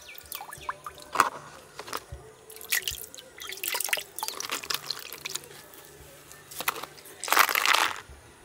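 Water splashing and dripping as a palm leaf is dipped and shaken in a steel pot of water, with irregular splashes and drips and a longer, louder splash near the end.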